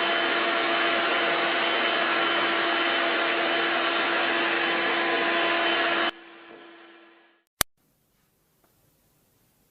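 Vacuum cleaner running steadily with a steady hum, switched off about six seconds in, its motor winding down over a second or so. A single sharp click follows, then near silence.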